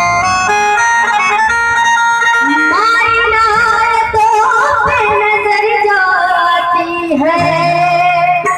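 A woman singing a Hindi devotional jagran song through a PA system, accompanied on electronic keyboard. The keyboard carries the melody alone for the first two seconds or so, then her voice comes in with sliding, ornamented notes.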